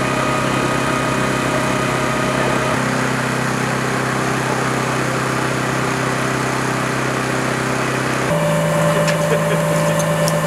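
An engine running steadily, its hum jumping to a different pitch about three seconds in and again near eight seconds. Faint ticks and hiss come in near the end.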